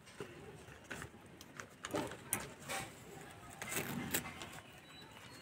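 Newspaper lining being peeled off the top of a baked cake, crinkling and rustling in a few short, quiet crackles.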